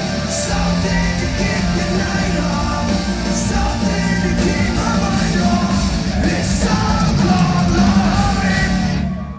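Live hard rock band playing loud, with electric guitars, bass, drums and a singer's voice; it cuts off at the very end.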